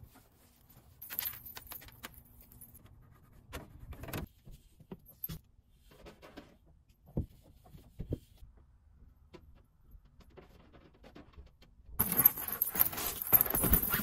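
Scattered small clicks and rustles of handling, then about two seconds of loud jangling, rustling noise near the end.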